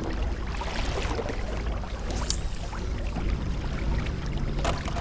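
Water washing along a kayak hull, with a steady low wind rumble on the microphone and a few small clicks from handling fishing gear.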